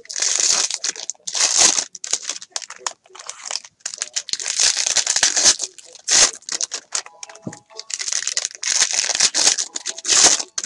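Foil wrappers of trading-card packs being crinkled and torn open by hand, in repeated bursts of rustling.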